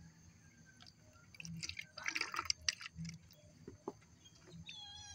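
Water poured from a plastic cup into a plastic spray bottle to mix in fungicide powder, splashing and trickling for just over a second, followed by a few light clicks. A cat meows near the end.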